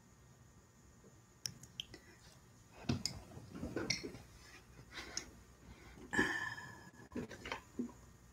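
Handling noises close to the microphone: a few sharp clicks, then irregular knocks and rustling as things are moved about, with one brief squeak in the middle.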